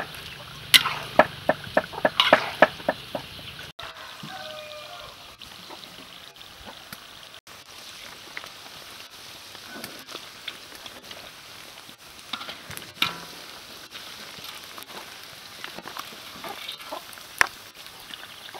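Chicken pieces deep-frying in a wok of hot oil: a steady sizzle. A quick run of sharp metal clinks from a utensil stirring against the pan comes in the first few seconds, and a few more clinks come later.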